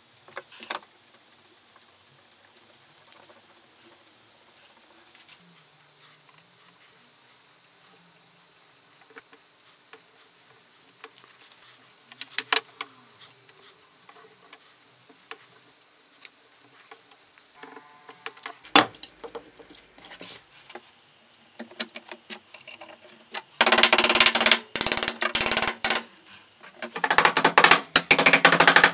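Small hammer tapping rapidly on the steel pins through a meat cleaver's wooden handle scales, in two loud runs of about two seconds each near the end. Before that there are only a few faint handling clicks.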